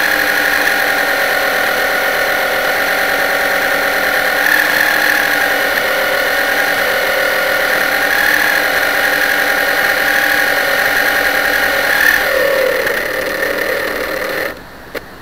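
Motor of a radio-controlled model boat, heard close up from on board, running steadily with a high whine. About twelve seconds in it winds down in pitch, then cuts off near the end, leaving the sound of flowing water.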